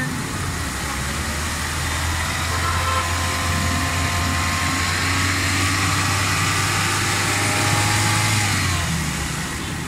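Honda City petrol engine idling steadily with the radiator cap off while the coolant bubbles in the filler neck, which the mechanic takes as the sign of a failing head gasket.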